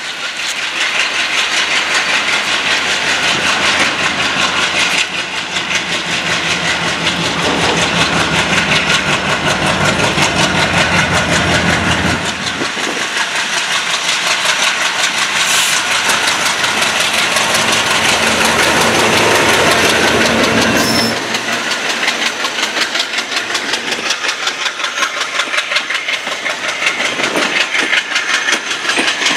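A diesel locomotive's engine running hard under load as it passes, trailing heavy black smoke, with steady wheel clatter over the rails. About two-thirds of the way through the engine drone falls away and the passenger coaches roll by with continuous clickety-clack.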